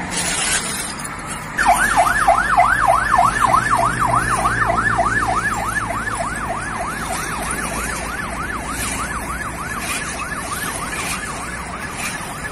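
Emergency vehicle siren in a fast yelp, about three quick rising-and-falling sweeps a second, starting abruptly a second and a half in, loudest at first and slowly fading.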